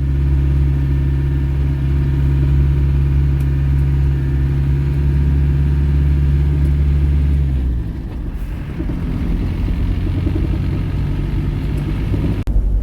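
A motor vehicle driving, its engine and road noise making a steady low drone; the drone changes about eight seconds in and shifts again abruptly near the end.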